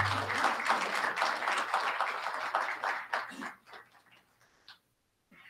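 Audience applauding, thinning to a few scattered claps and dying out about four seconds in. A short low thump sounds at the very start.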